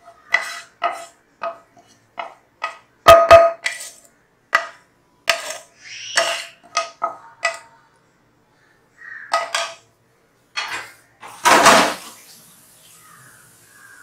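A knife blade tapping and scraping against a glass bowl as chopped vegetable filling is knocked off into it: a quick series of sharp clinks, each with a short ring, and a longer scrape about eleven seconds in.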